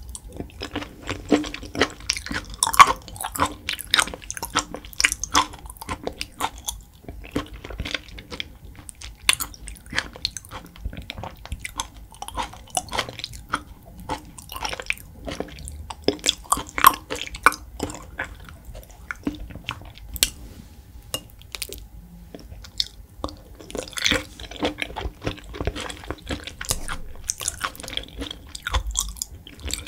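Close-miked chewing of raw beef: many small, quick mouth clicks in clusters, with short lulls between bites.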